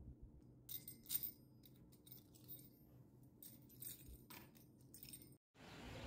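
Light metallic clicks and clinks from the steel wheels of a double-wheeled pizza cutter being handled, a dozen or so small taps spread irregularly over a few seconds.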